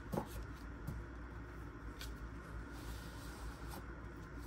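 Tarot cards being gathered off a table and squared into a stack by hand: a few faint taps and slides over a steady low hum.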